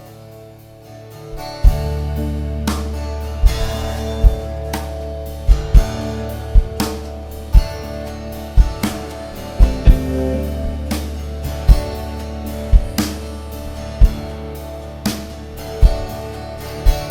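Rock band playing an instrumental intro: guitar at first, then drums and bass guitar come in about a second and a half in, with kick-drum hits about once a second under sustained guitar chords.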